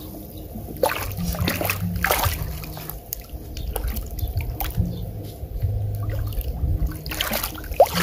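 Water splashing and trickling, with a few sharper splashes about a second in, about two seconds in and near the end.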